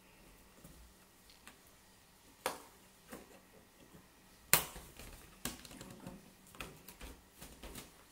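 Scattered sharp clicks and rubbery snaps from a latex balloon being worked off the neck of a plastic bottle and handled. The loudest snap comes about four and a half seconds in.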